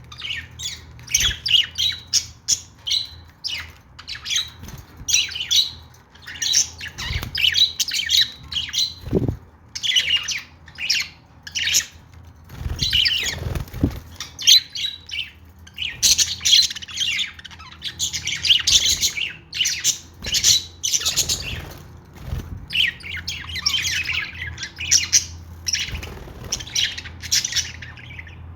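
Pet budgies (budgerigars) chattering and chirping in a continuous stream of short, high calls and squawks, with brief pauses.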